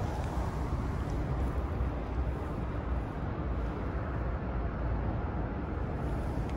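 Steady low rumbling noise, even throughout, with no distinct knocks or clicks.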